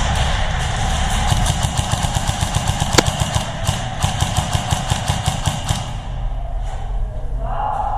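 Airsoft gun firing full-auto: a long stream of rapid shots lasting about four seconds, with one sharper crack about three seconds in.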